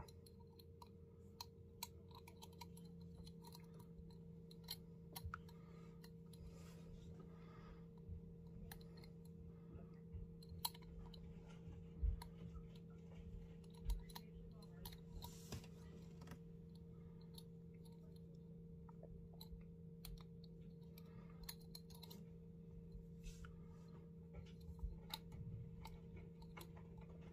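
Faint scattered clicks and taps of copper wire against a small glass jar as the wire is bent by hand into a bail handle, over a steady low hum. Two louder knocks come about halfway through.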